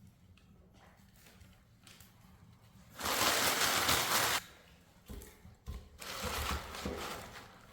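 Hands-on work at a wood stove being lit: a loud burst of hissing noise about three seconds in that lasts over a second, then a second, weaker stretch of hiss with several low knocks near the end.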